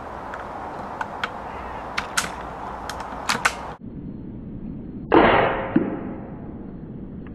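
A single .22 rifle shot: a sharp report that fades over about a second, followed by a smaller knock. Before it come several light clicks.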